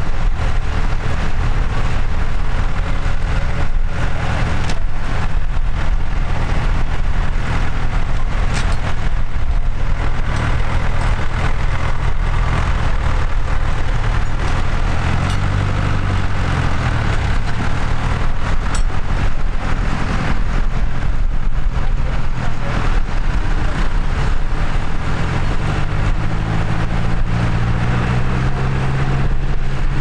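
Tractor engines running close by, with the engine note changing pitch about halfway through and rising near the end.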